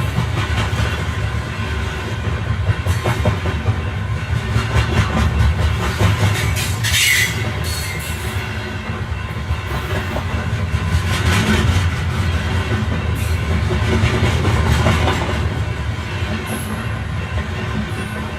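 Passenger train running along the track: a steady low rumble with irregular clicking of the wheels over rail joints and points, and a short high-pitched sound about seven seconds in.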